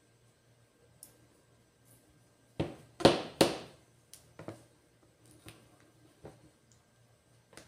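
Knife and fork knocking and scraping against a plastic container while cutting a slice of chilled graham cake: a cluster of three louder knocks near the middle, then scattered light taps.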